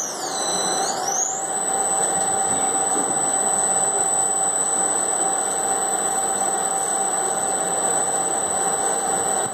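A stainless-steel 15 kg industrial washer extractor running, with a steady mechanical whir. Over it sits a high whine that dips in pitch and climbs back within the first second and a half, and a steady mid-pitched hum comes in just after the start.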